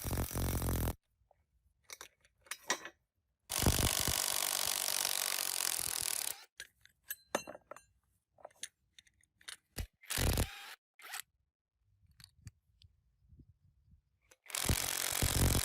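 Scraping in three spells: a short one at the start, a longer one of about three seconds a few seconds in, and another near the end. Short clicks and knocks fall between them.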